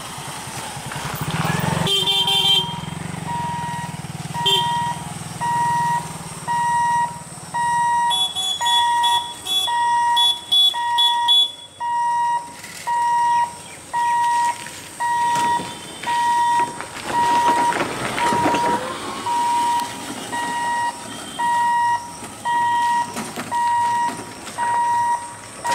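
Level crossing warning hooter beeping steadily, one even tone about once a second, as the boom barriers are lowered. An engine hums as a motorcycle passes in the first two seconds, and a few short, high rings sound around the middle.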